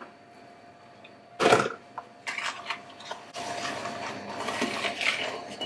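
Sugar tipped into a glass mixing bowl with a short burst of sound about a second and a half in, then a wooden spoon creaming softened butter and sugar in the bowl: a continuous, uneven scraping and stirring that starts about two seconds in and gets louder.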